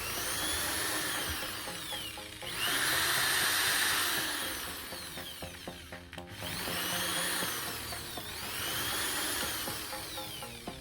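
Electric drill running a homemade polishing pad made from a plastic water-gallon bottle, its motor whine rising and falling in pitch as the speed changes.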